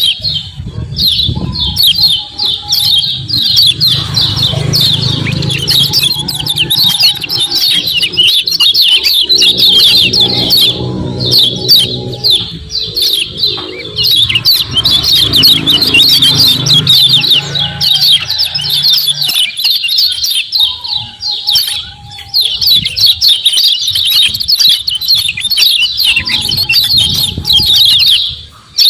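Kecial kuning (yellow white-eye) giving its rapid 'ciak ciak' chattering call: a dense, unbroken run of fast high chirps, with a few brief pauses.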